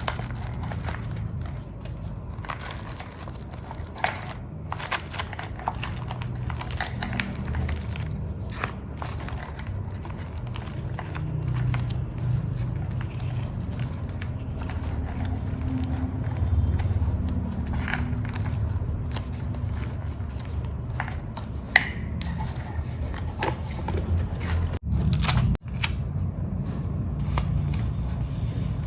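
Paper and journaling materials being handled: rustling, crinkling and scraping, with frequent small clicks and snips, over a low steady rumble.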